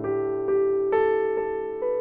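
Background piano music: keyboard notes struck about twice a second, the melody moving up about a second in.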